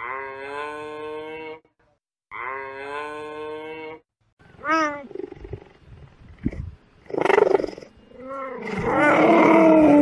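Two long, even moo-like calls, then a cheetah: a quick rising-and-falling chirp about four and a half seconds in, followed by louder, rough, growl-like calls that swell toward the end.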